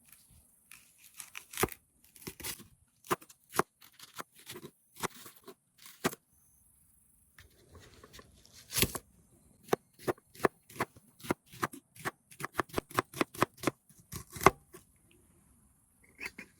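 A run of short, sharp clicks and crackles from something being handled close by, sparse at first and coming quickly and steadily from about halfway through.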